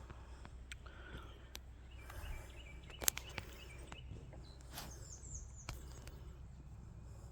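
Outdoor ambience: a steady low rumble with faint bird chirps and a few sharp clicks, the loudest about three seconds in.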